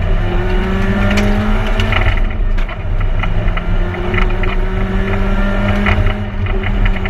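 Peugeot 106 1600 rally car's four-cylinder engine heard from inside the cabin, pulling hard under acceleration, its pitch climbing. The pitch breaks about two seconds in and climbs again from about four seconds, over a constant loud drone with scattered short clicks and knocks.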